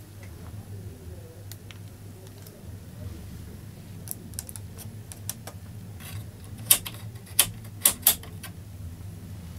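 Sharp plastic clicks from a DAF CF85 truck's dashboard controls: light clicks of button presses, then four loud clicks in the second half as the rotary gear selector knob is turned through its detent positions.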